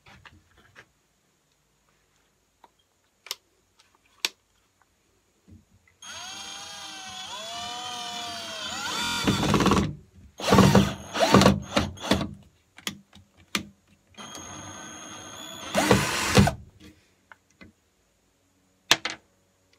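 Cordless drill: after a few light clicks, the motor spins up and runs for about three seconds with its pitch wavering as the trigger is worked. Then come several short, loud bursts of the drill under load, and one more steady run of about two seconds.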